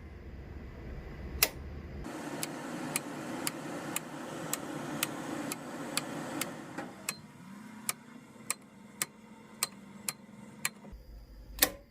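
Circuit breakers in a home breaker panel being snapped over one after another, a sharp click about every half second, while searching for the right circuit. A low hum stops about two seconds in and returns near the end.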